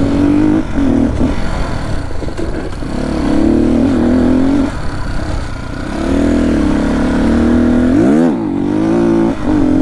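Dirt bike engine running as it rides along a rough dirt track, its pitch rising and falling with the throttle. About eight seconds in it gives one quick, sharp rev up and back down.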